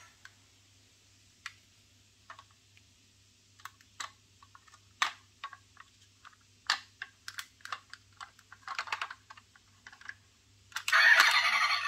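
Scattered light clicks and taps of a diecast metal toy pickup truck being handled: its parts and sprung wheels knocking as it is lifted and turned in the hand. Near the end a much louder sound cuts in.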